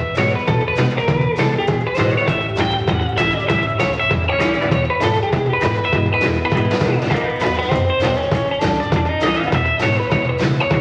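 A rock and roll band playing an instrumental break: a lead guitar solo over bass and a steady drum kit beat.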